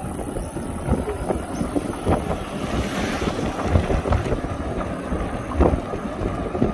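A moving open vehicle with wind buffeting the microphone and a steady low rumble from the ride, broken by several short knocks and rattles.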